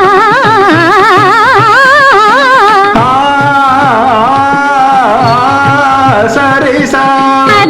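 Carnatic music: a single melodic line with fast, wavering ornaments on each note over a steady drone. About three seconds in, it changes to longer held notes joined by slow slides.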